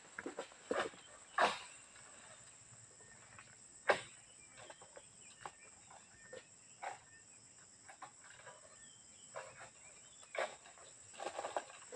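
Scattered rustles and sharp clicks of a long-pole harvesting sickle working the fronds in an oil palm crown, the sharpest about four seconds in. A faint steady high-pitched insect drone runs underneath.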